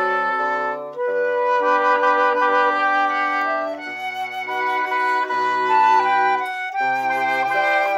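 A woodwind quintet of flute, French horn, bassoon and reed woodwinds playing a chordal passage together. The notes are held and change in steps, with the flute on top over a moving bassoon bass line, and the ensemble eases off briefly about four seconds in.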